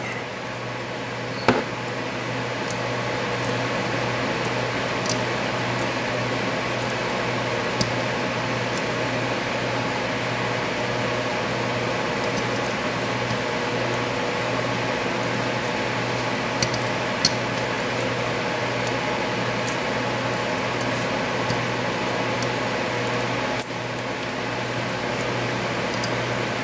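Steady machine hum holding a few level tones, with a handful of light, scattered clicks of small metal lock parts being handled as the top pins are taken out of a disassembled pin-tumbler cylinder.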